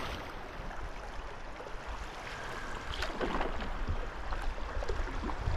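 Swift river current rushing and lapping around a canoe, with a few light splashes around the middle.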